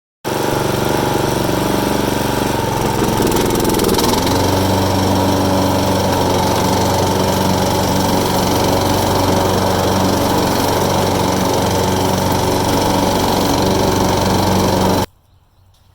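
John Deere 14SB walk-behind lawn mower's small engine running steadily. Its pitch drops slightly about three seconds in, and the sound cuts off suddenly near the end.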